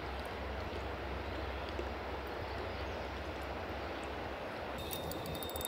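Steady wind rumble and hiss on the microphone over an open lake. About five seconds in the rumble drops away, leaving a quieter outdoor background with a faint high, fast chirring.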